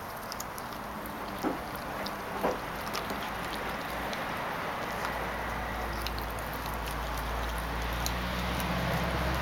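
Labrador puppy gnawing a raw chicken leg, with small scattered clicks and crunches of teeth on meat and bone and two louder bites early on. A low steady rumble comes in about halfway through and grows toward the end.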